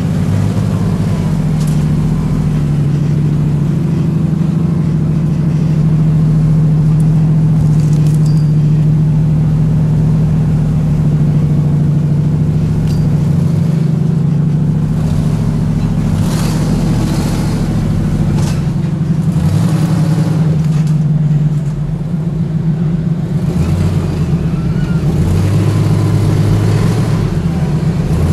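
Supercharged 4.6 L V8 of a first-generation Ford Bronco running in a steady drone as it crawls over a rutted dirt trail, with a few stretches of rushing, rustling noise in the second half.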